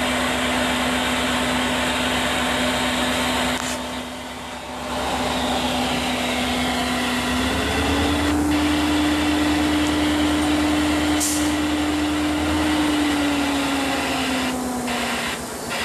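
Train engine running with a steady hum over a noisy rush; the hum rises in pitch about seven seconds in and drops back near the end.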